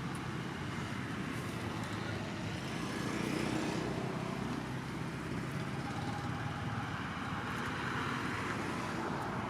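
Steady outdoor background noise of road traffic, an even rumble and hiss with no single event standing out.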